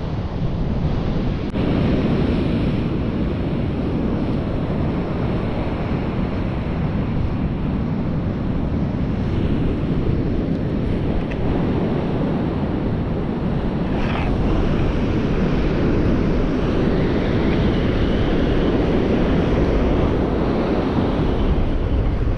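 Strong wind buffeting the microphone over the steady rush of breaking surf on a rough, windy beach.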